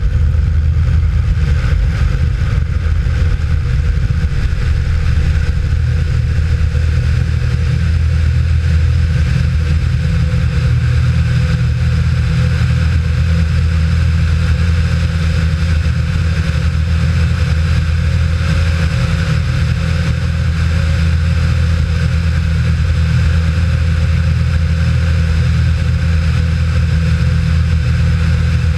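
Cessna 172's engine and propeller running steadily at full takeoff power, with a strong low drone and rushing air over the outside-mounted microphone, through the takeoff roll and climb-out.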